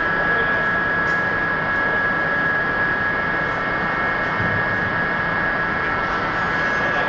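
Steady running of heavy workshop machinery: an even noise with a constant high whine on top.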